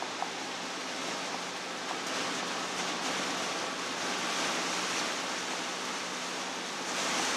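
Steady road noise inside a motorhome cab driving slowly on a wet road: a hiss of tyres and rain over a faint low engine hum.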